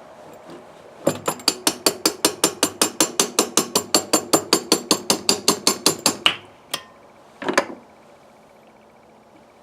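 A hand ratchet tool clicking steadily, about five clicks a second for some five seconds, as a fastener on a carburetor is worked loose or run out; then a single click and a short clatter of a part near the end.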